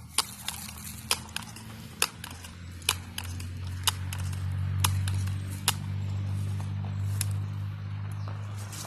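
Footsteps crunching on the ground, about one step a second, over a steady low motor hum that grows louder about three seconds in.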